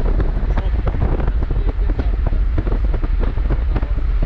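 Wind buffeting the microphone: a loud, steady low rumble broken by many irregular short thumps.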